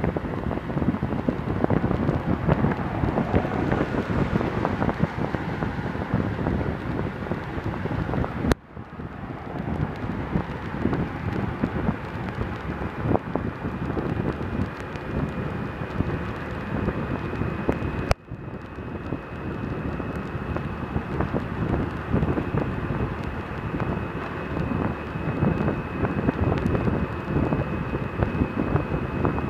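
Wind buffeting the microphone of a camera riding along a highway, over engine and road noise. It dips out suddenly twice, about a third of the way in and again past halfway, and a faint steady high whine runs through the second half.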